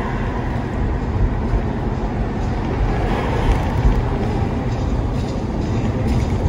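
Steady low rumble of a car's tyres and engine while driving, heard from inside the cabin.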